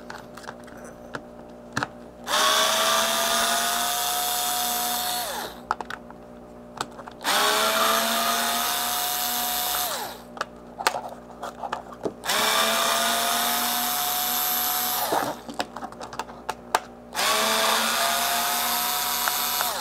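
Cordless drill-driver with a hex bit backing out the case screws of a small smart speaker. Four runs of the motor, about three seconds each, with small handling clicks between them. Each run is a whine that rises quickly in pitch and then holds steady.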